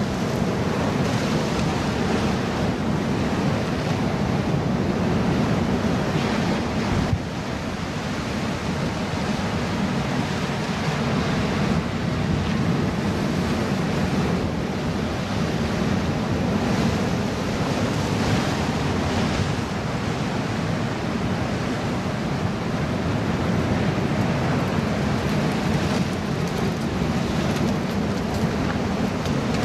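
Surf breaking and washing against a boulder rock wall, a steady rushing noise, with wind buffeting the microphone.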